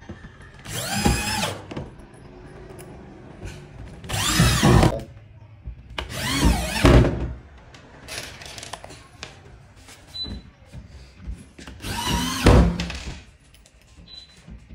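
Corded electric drill driving screws into a board in four short runs of about a second each, the motor's pitch sweeping up and back down with each one.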